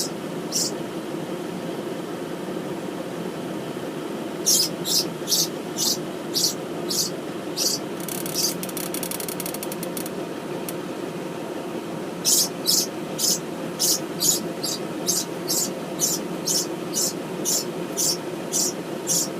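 A captured small bird chirping in runs of short, high-pitched calls, about two a second, with a brief rapid rattle in the middle, over a steady low hum.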